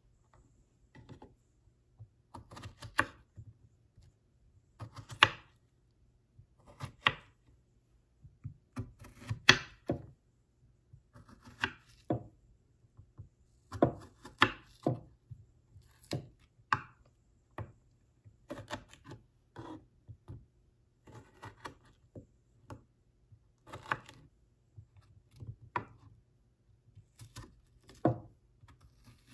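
Paring knife slicing through fresh strawberries and knocking on a wooden cutting board, one sharp cut every second or two.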